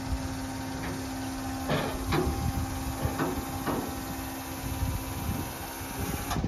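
1993 Honda Acty mini truck's dump bed tipping up with the engine idling: a steady hum from the lift mechanism, with a few knocks from the bed along the way. The hum stops about five seconds in.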